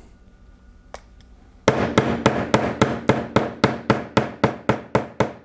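Rapid, even series of sharp taps on the Honda GCV160 carburetor, about four a second, an attempt to knock its emulsion tube loose. The tapping starts a couple of seconds in and cuts off suddenly.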